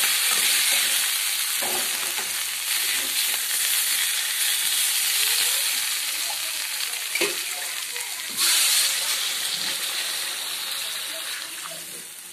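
Spiced potato wedges sizzling in hot oil in a pan while a metal spatula stirs and scrapes them, with a few sharp scrapes against the pan. The sizzle surges briefly about eight seconds in and eases off toward the end.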